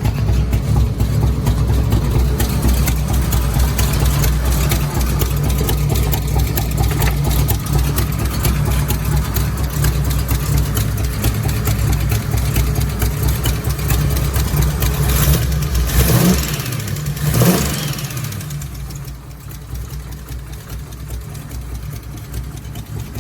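Carbureted Ford 302 V8 with an E303 cam idling with a steady, choppy rumble. About two-thirds of the way through it is blipped twice, rising in pitch each time, then settles back to a quieter idle.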